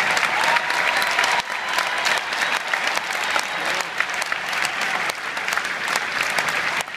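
Large arena crowd applauding, loudest for the first second and a half, then a little softer, and dropping off sharply near the end.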